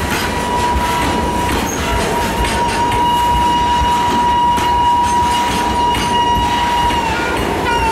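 Train running past with wheels clattering over the rails, and a long steady high-pitched tone held over it that wavers and breaks up near the end.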